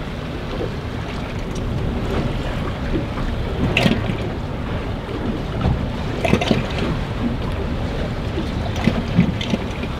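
Wind buffeting the microphone over choppy sea, with waves washing against the boat, and a few short, sharper sounds, about four, six and nine seconds in.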